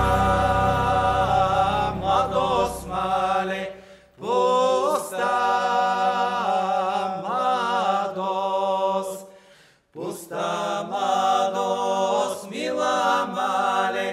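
Small Bulgarian folk vocal group singing a cappella in close harmony, in long held phrases with brief breaks about four and ten seconds in.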